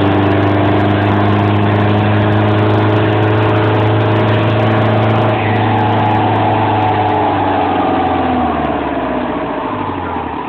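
Cummins 4BT four-cylinder turbo diesel in a 1995 Ford Ranger held at high revs under load on a chassis dyno. About five seconds in it is let off, and its pitch falls steadily as the engine and dyno rollers wind down.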